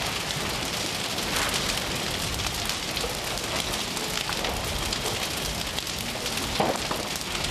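A burning timber-framed house, its fire crackling densely with many sharp snaps and one louder pop near the end.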